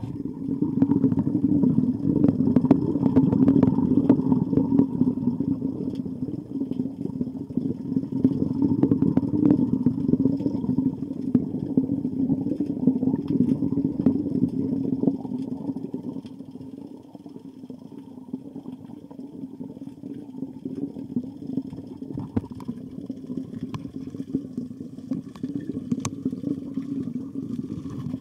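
Muffled low rumble with dense crackling and small clicks, as picked up by a camera lowered into a pond.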